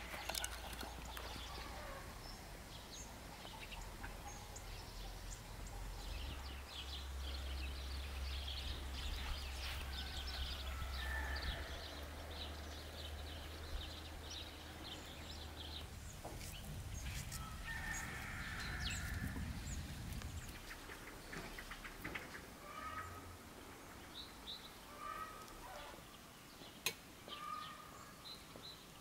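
Domestic chickens clucking, with short calls scattered through.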